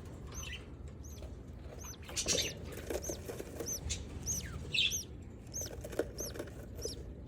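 Budgerigars in an aviary giving short, high arched chirps over and over, with bursts of wing flapping, the biggest flurry about two seconds in.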